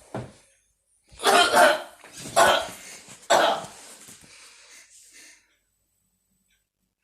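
A person coughing: three loud coughs about a second apart, after a short one at the very start, dying away a little over five seconds in.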